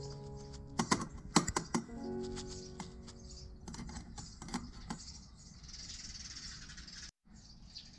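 Light clicks and taps with a papery rustle as a paper coffee filter of ground coffee is handled and shaken level in a folding metal dripper. A cluster of sharp clicks comes about a second in, a few more around four seconds, and the rustling near the end. Soft background music plays underneath, its notes fading.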